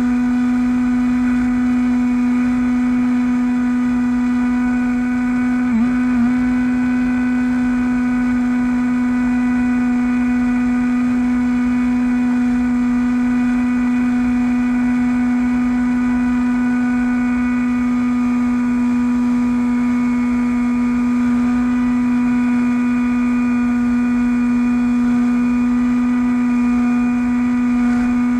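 Bixler v1.1 RC plane's brushless electric motor and pusher propeller running at a steady cruise throttle, heard on board as a constant buzzing whine that holds one pitch.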